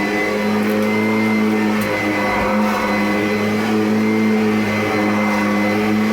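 Kirby Avalir upright vacuum running steadily, its motor giving a loud, even whine at a nearly constant pitch. It sounds healthy and runs really good.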